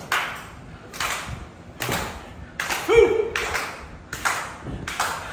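Wrestling audience clapping in a steady rhythm, a little over one clap a second, to rally the downed wrestlers, with a single shout from the crowd about three seconds in.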